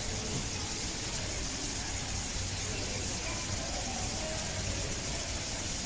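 A steady hiss of background noise with faint, distant voices of visitors.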